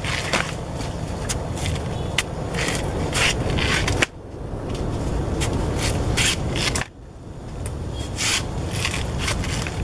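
Machete cutting and tearing away the fibrous outer sheaths of a banana trunk: a run of crisp snapping and ripping strokes over a steady low rumble, which dips briefly twice.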